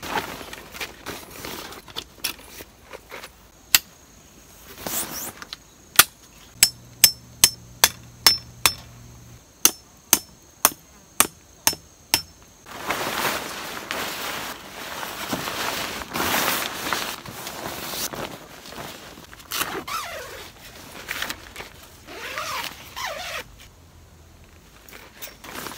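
Metal tent pegs being hammered in: a run of about a dozen sharp, ringing metallic strikes, about two a second, followed by several seconds of rustling and scraping.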